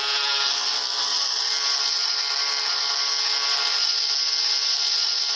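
Novelty sound-effect button playing a loud, steady, rasping tone through its small speaker. The tone starts abruptly and holds level.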